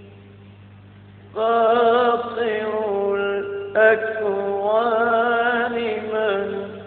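A male religious chanter singing a long melismatic phrase in Egyptian ibtihal style, with wavering vibrato. He comes in about a second and a half in, a new phrase starts near four seconds, and it fades away near the end over a faint steady low hum.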